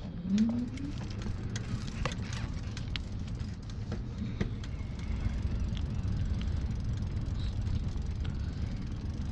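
Riding noise from a Pedego e-bike in motion: a steady low rumble of wind and tyres on the road, with scattered small clicks and rattles. A short rising tone sounds right at the start.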